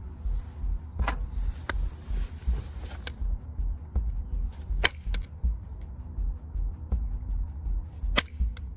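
A limestone spear point being flaked: five sharp, widely spaced clicks as flakes snap off, with a stretch of scraping in the first few seconds, over a steady low rumble.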